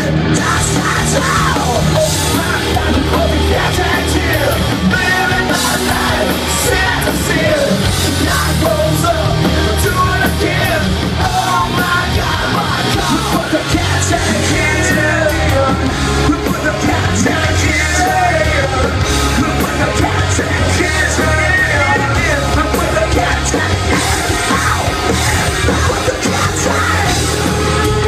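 Live hard rock band playing loud, with electric guitars under a singer's shouted, yelled vocals.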